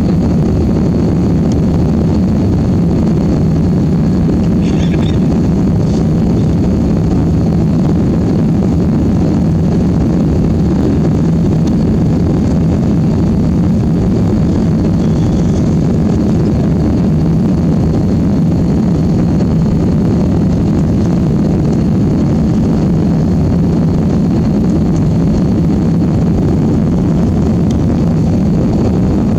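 Steady jet airliner engine noise, a constant low rumble that neither rises nor falls.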